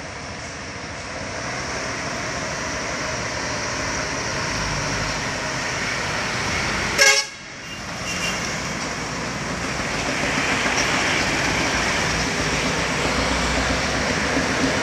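Sugarcane trucks and other traffic driving around a hairpin bend, their engines growing louder as they near. About seven seconds in, a short, loud horn toot from a vehicle passing close by.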